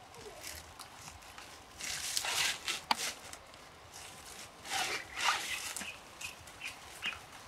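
Banana leaves being pulled and torn: irregular rustling and ripping in a few short bursts, with a sharp snap about three seconds in.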